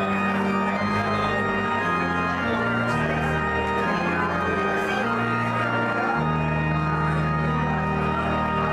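Organ playing slow, held chords over a sustained bass line, the chords changing every second or so.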